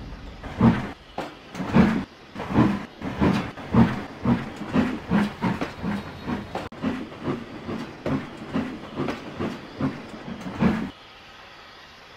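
Steam locomotive chuffing: rhythmic hissy exhaust beats that quicken as the engine gets going, then cut off suddenly near the end.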